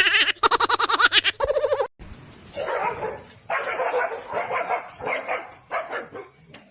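A dog barking and yipping in quick, irregular bursts, with a sudden change of clip about two seconds in.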